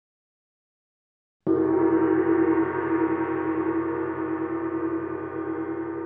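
Silence, then about a second and a half in a single struck ringing tone, full of overtones, starts suddenly and slowly fades with a pulsing waver: a gong-like sound effect marking a title card.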